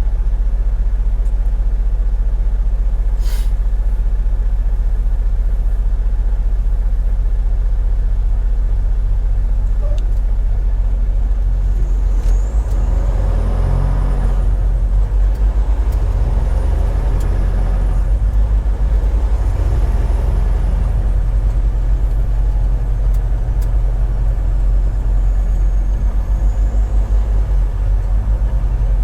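Semi truck's engine and drivetrain droning steadily, heard from inside the cab. About twelve seconds in, the road noise swells and a faint high whine rises and falls a few times.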